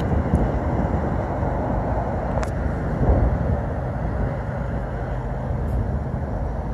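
Steady low outdoor rumble with a hiss, with a few faint clicks.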